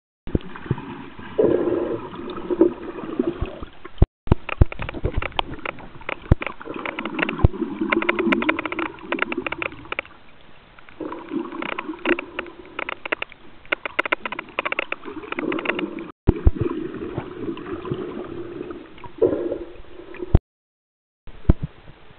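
Water gurgling and sloshing heard through an underwater camera's housing, with many sharp crackling clicks throughout. The sound cuts out abruptly for a moment several times.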